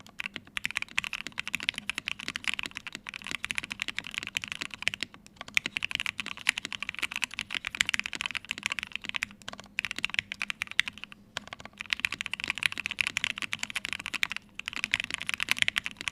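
Fast, continuous typing on a Matrix Vita mechanical keyboard: lubed and filmed Gateron Ink Black v2 linear switches in an aluminium plate, with cherry-profile ABS keycaps. The typing breaks off briefly a few times.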